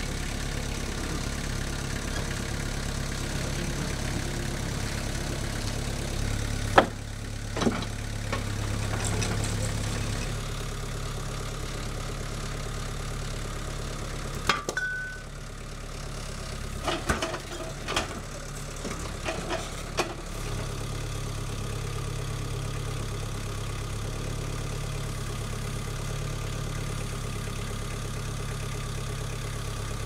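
Engine of a compact tracked loader running steadily, its note shifting about ten and twenty seconds in. Wooden knocks and clunks come from slabs and a log being handled, the sharpest about seven seconds in.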